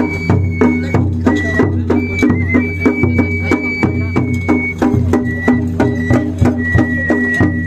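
Japanese festival music: a large taiko drum on a festival cart beaten in a quick, steady rhythm, with a high flute holding long notes with small turns over it.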